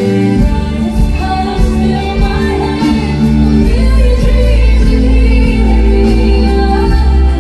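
Music with singing over a steady low bass, the notes held and overlapping.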